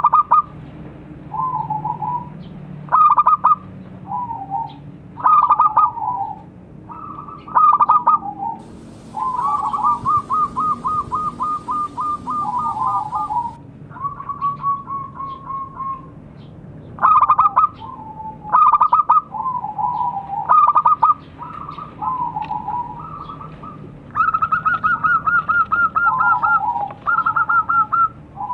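Zebra dove (perkutut) cooing: repeated short staccato coos, broken by two longer runs of rapid rattling coos, one near the middle and one near the end.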